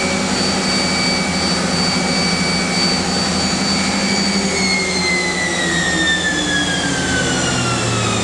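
Mazak Nexus 510 II machining center's CAT 40 spindle running at its top speed of 12,000 RPM with a steady whine. About halfway through it begins to spin down, and the whine falls steadily in pitch.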